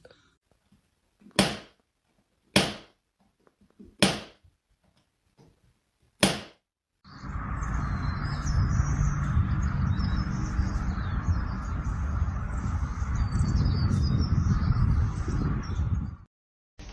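Four short, sharp swishes spread over a few seconds, then birds chirping over a steady low rumble that cuts off suddenly.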